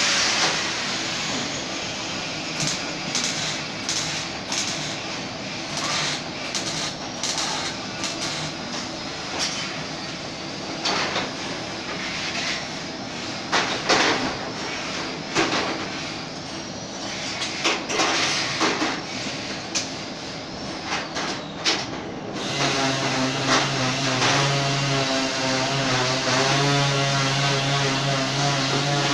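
Workshop din with repeated sharp metal clanks and knocks as sheet-steel panels are handled. About three-quarters of the way in, a steady pitched machine hum with a wavering tone takes over.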